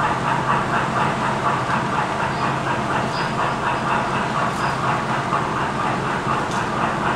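Model freight cars rolling past close by, their wheels clicking steadily over the track joints several times a second, over a steady low hum.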